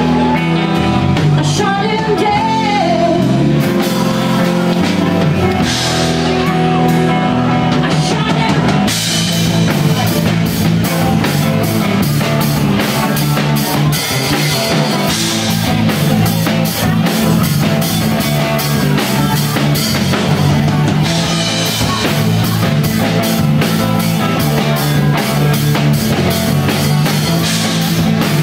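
Live rock band playing: a woman singing into a microphone over electric guitar and drum kit, with the drums playing busier from about nine seconds in.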